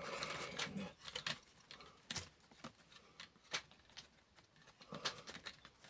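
Scattered light clicks and taps of hands working by hand to force a wheel axle with its drive cog through a model locomotive chassis, a tight fit.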